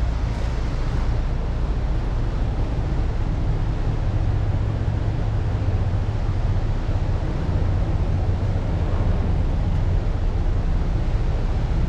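Twin diesel engines of a Prestige 590S motor yacht running steadily at slow speed in gear, a low even drone, with wind noise on the microphone.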